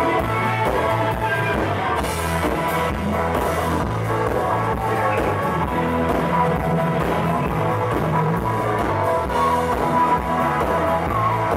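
Live blues-rock band playing an instrumental passage with no vocals: electric bass and drums driving a steady rhythm under keyboard and guitar.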